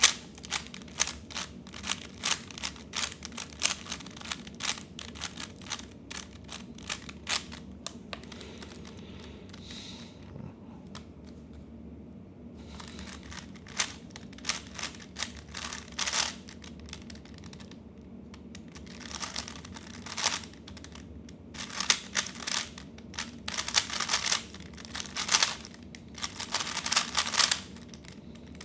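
3x3 Rubik's cube being turned by hand: runs of rapid plastic clicking and clacking as the layers turn, broken by short pauses.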